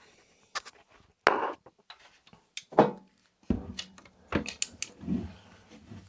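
Metal NAS chassis being handled and turned over on a table: about seven sharp knocks and clicks, scattered and uneven.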